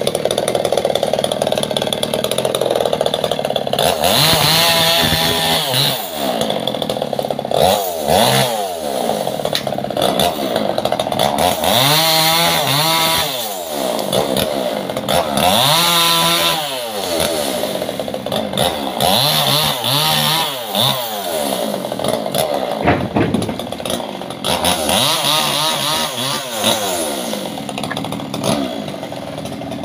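Two-stroke chainsaw running continuously while cutting sengon laut (albizia) wood. Its engine pitch rises and falls about every four seconds as it revs up and settles back.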